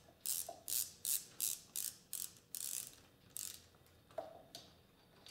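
Hand ratchet wrench clicking in quick strokes, about three clicks a second, as it snugs down cam journal cap bolts; the clicking stops about three and a half seconds in.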